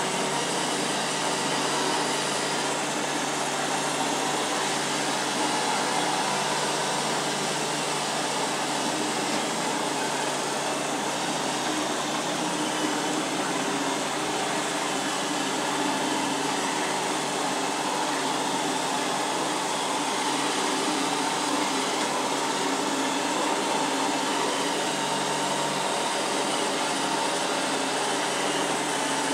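Robot vacuum cleaner running steadily, its suction motor and brushes giving an even whir over a constant low hum.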